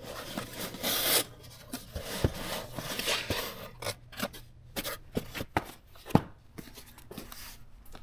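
Cardboard boxes being slid off a stack and handled: a scraping slide in the first second, then a string of sharp cardboard taps and knocks, the loudest about six seconds in.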